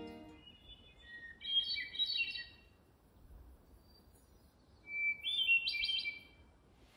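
A songbird sings two short phrases of quick chirping notes, about a second in and again near five seconds in, over faint outdoor background hiss.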